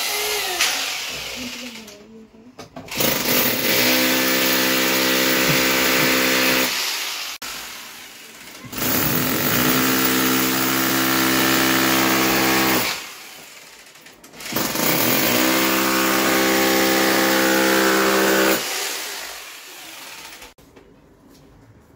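Corded electric drill boring into a wall in three runs of about four seconds each, the motor holding a steady whine under the grinding of the bit.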